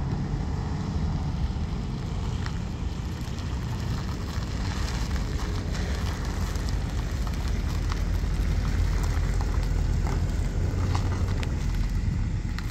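2006 Chrysler 300C driving slowly across an asphalt lot: a steady low engine rumble with tyre noise and a few light crackles from the gritty pavement, growing a little louder as the car comes back toward the camera near the end.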